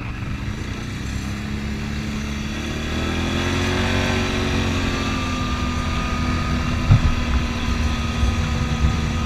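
Can-Am ATV engine pulling away on a paved road, its pitch rising over the first few seconds and then holding steady at cruising speed, with wind rumbling over the microphone. A single thump about seven seconds in.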